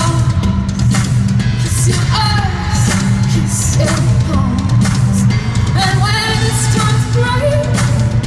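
Live amplified band with a woman singing lead over a steady drum beat and heavy bass, recorded from the audience in an arena.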